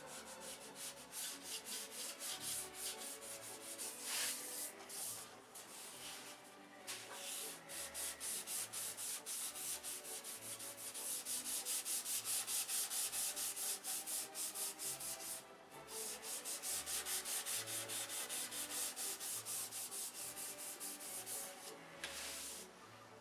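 Sandpaper rubbed back and forth over a control-line stunt model airplane's fuselage, in quick, even strokes, about four to five a second, stopping briefly a few times. This is fine-grit (600) sanding of the finish before painting.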